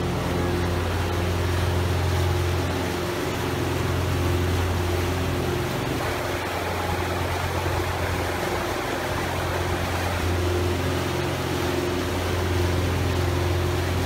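A yacht's engine running steadily under way, a constant low hum, with the wash of the wake churning behind the stern.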